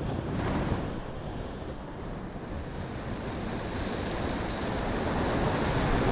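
Surf breaking and washing over the rocks of a jetty. One wave surges in about half a second in, and the wash builds again toward the end. Wind buffets the microphone throughout.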